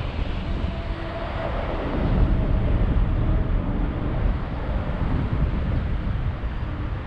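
Wind buffeting the microphone outdoors, a continuous uneven low rumble.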